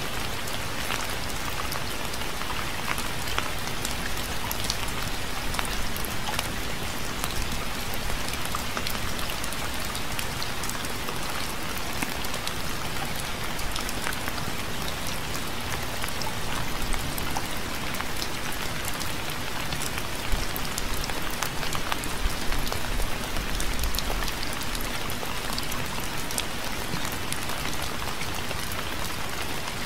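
Steady rain falling, with many close individual drops pattering on a surface.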